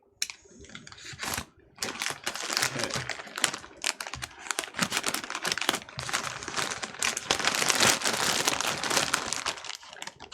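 Shipping packaging being torn open and handled, a dense run of crinkling and tearing that starts about two seconds in and goes on to the end.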